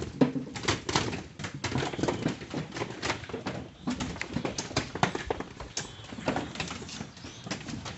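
Cassava roots being unloaded and tossed onto a pile: a quick, irregular clatter of hard knocks as the woody roots strike one another.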